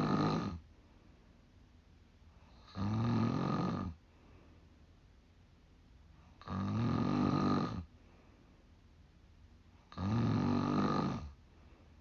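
A 45-year-old woman snoring, one loud snore about every three and a half seconds, each lasting about a second and a half. Three full snores, plus the end of one just at the start.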